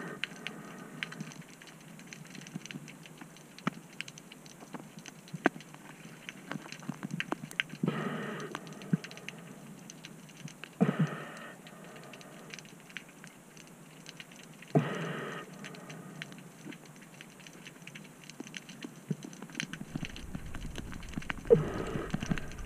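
Underwater sound: a constant crackle of small sharp clicks, with four louder rushing swishes a few seconds apart.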